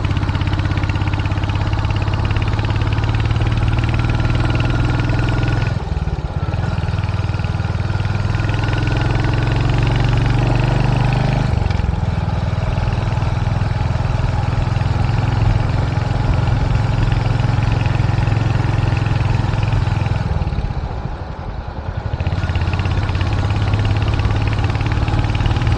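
Motorcycle engine running steadily under way, with a short break in the sound about six seconds in and the engine easing off and picking up again near the end.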